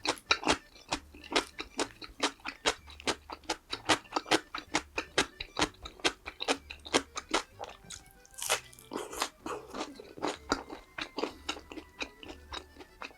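Close-up crunching and chewing of crispy fried food: a rapid, steady run of crisp bites and chews, several a second, with one louder crunch a little past the middle.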